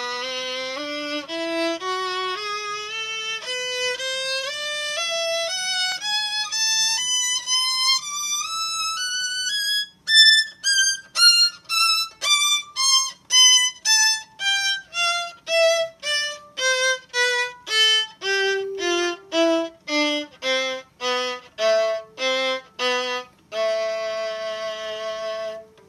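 Violin playing a three-octave A harmonic minor scale: it climbs in connected notes to the top A about ten seconds in, then comes back down in short separate bow strokes with gaps between them, and ends on a long held low A.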